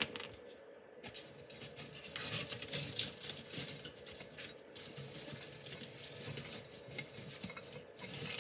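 Dried grass stems and wooden flowers rustling and scratching as they are pulled and pushed about in a glass vase.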